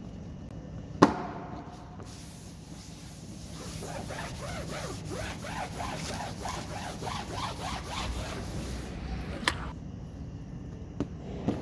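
A sharp knock about a second in, then a cloth rag rubbed back and forth over a wet rubber mat in quick repeated strokes, about three a second. A few light clicks near the end.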